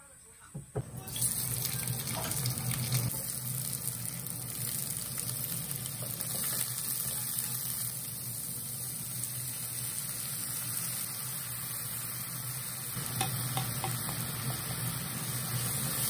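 Vegetables and noodles sizzling in a hot wok, a steady hiss that starts abruptly about a second in, with a few light clicks of a wooden spatula against the pan.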